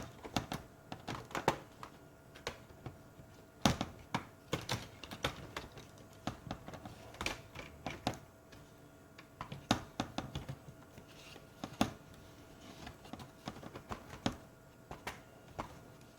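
Irregular small clicks and taps of hands working on laptop internals: plastic parts and little cable connectors being handled and pressed into place.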